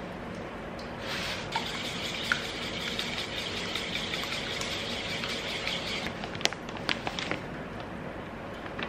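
A wire whisk beating eggs and cream in a stainless steel bowl: a steady wet swishing and scraping, followed about two-thirds of the way through by a few sharp taps.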